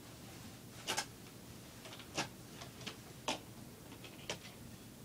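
Sharp clicks and clacks of hard toy pieces being handled, about one a second and uneven in strength, the loudest about a second in and at the very end.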